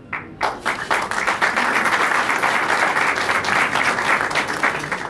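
Audience applauding, building up within the first second, holding steady, then dying away near the end.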